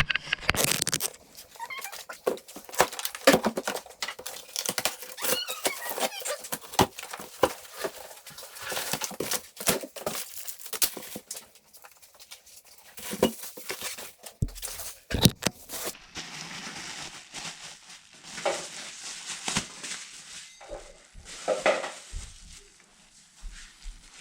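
Cardboard shipping box being opened and unpacked: cardboard and packing material crinkling and tearing, with scattered knocks and a couple of heavier thumps around the middle.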